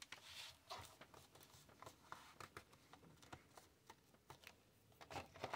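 Faint rustling, light taps and scrapes of cardstock being pressed and slid across a plastic scoring board, with a slightly louder scrape about five seconds in.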